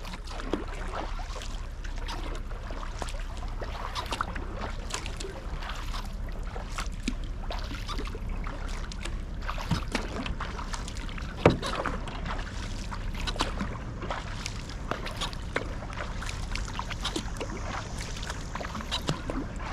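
Sea kayak under way: paddle blades splashing into the water and water running off them, over a steady low rumble. A single sharp knock about halfway through is the loudest sound.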